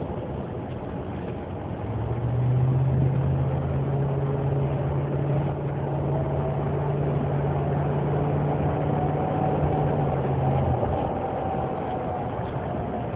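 Loud whining noise from a 2009 Dodge Ram 1500 under way, heard from inside the cab over the truck's running. It comes in about two seconds in, holds steady, and cuts off abruptly near the end, which is how it quits when the transmission shifts from third to fourth gear.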